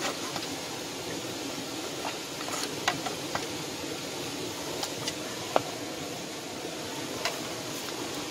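Steady rush of flowing river water, with a few scattered short sharp clicks.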